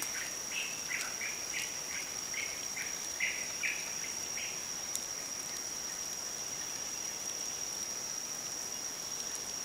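Forest background of a steady, high-pitched insect trill, with a run of short repeated chirps, one or two a second, that stops about four and a half seconds in.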